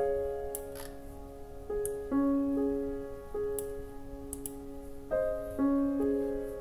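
Background piano music: soft notes and chords struck every half second to a second, each ringing and fading.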